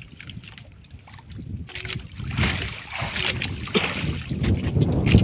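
Wind rumbling on the microphone and water splashing against the hull of a small outrigger fishing boat, getting louder about two seconds in.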